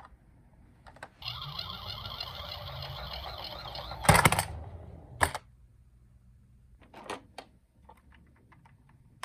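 Plastic toy vehicle handled and run on a slope: a steady rattling whir for about three seconds, cut off by a loud clack. A smaller clack follows, then a few light plastic clicks.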